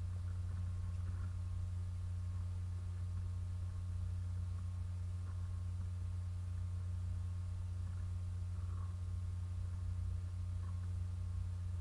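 Steady low electrical hum, unchanging throughout, with no other sound.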